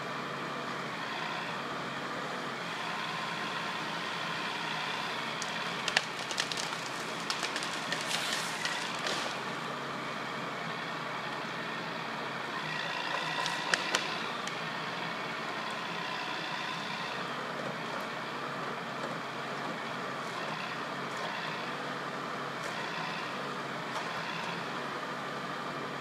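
Wheeled forestry harvester running steadily, its engine joined by a steady whine. Clusters of sharp cracks and snaps come twice, about six to nine seconds in and again near fourteen seconds, while the harvester head works on a log.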